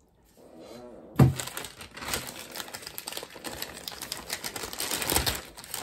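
A plastic bag of green ground-cover material crinkling and crackling steadily as it is handled and opened, after a sharp knock about a second in.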